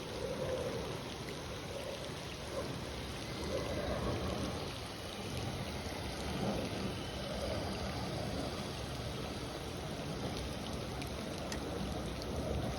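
Water churning and sloshing in swells as a Traxxas TRX-4M RC crawler wades through deep water, with rain ticking down.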